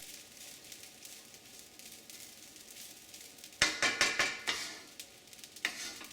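Rice frying in mustard oil in a pan, a faint steady sizzle, broken about three and a half seconds in by a cluster of sharp scrapes and knocks of a utensil against the pan, with another stroke near the end.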